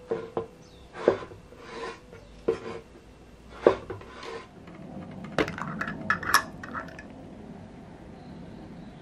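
Tableware being handled: separate knocks and clinks of dishes for the first few seconds, then a quicker run of brighter clinks around six seconds in.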